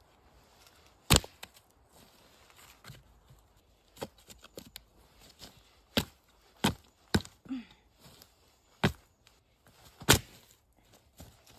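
Chopping: about eight sharp knocks at irregular intervals, the loudest about a second in and near the end.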